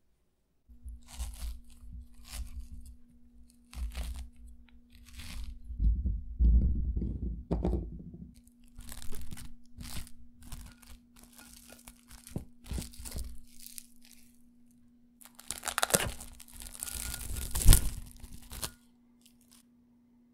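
Plastic cling film being pulled and crinkled over a glass dish of cut kabocha pumpkin, in a run of crackling rustles that are loudest near the end. There are some dull knocks about six to eight seconds in, and a faint steady hum underneath.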